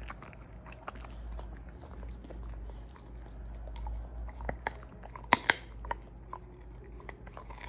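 A large dog chewing and crunching food, with irregular small crunches and two sharp, loud bites close together about five and a half seconds in.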